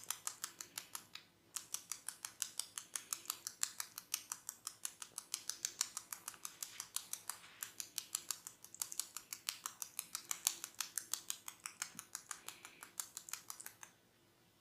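Hair cracking in a barber's head massage: tufts of hair snapped between the fingers in a fast, even run of crisp crackling clicks, about eight a second. There is a short break about a second and a half in, and the clicking stops just before the end.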